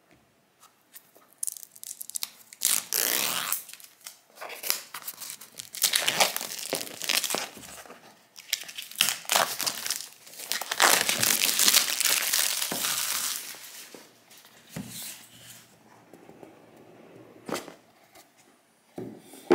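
A new phone's retail box having its packaging torn open and crumpled, in loud crackling, rustling bursts for about twelve seconds. Then come a few light clicks and a soft knock as the box is handled.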